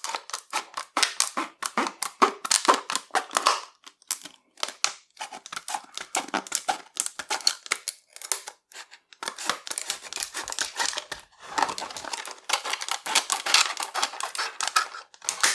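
Heavy-duty shears snipping and crunching through clear plastic packaging, with crinkling as the plastic splits. The snips come in rapid runs broken by a few short pauses.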